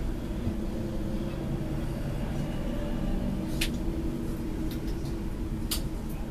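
Steady hum of a tram standing still, heard from on board, with two sharp clicks, one about midway and one near the end.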